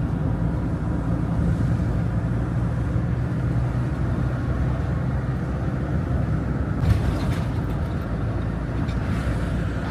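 Engine and road noise heard inside a moving motorhome: a steady low drone, with a single brief knock about seven seconds in.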